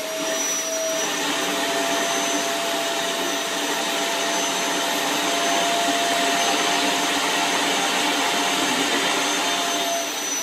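Vacuum cleaner running steadily with a constant whine over the rush of suction, its hose nozzle drawn over a cat's long fur.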